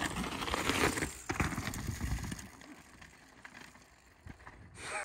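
Mountain bike ridden over rough, stony ground: tyre noise with scattered knocks and rattles, growing quieter about halfway through.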